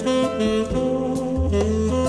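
Background jazz music: a saxophone plays a melody of held notes over a bass line.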